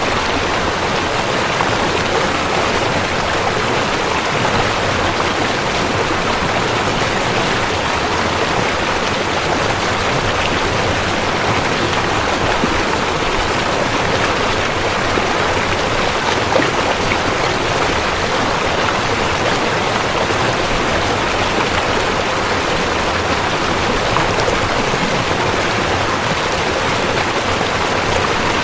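Rushing river water flowing steadily, a constant even rush with no breaks or changes.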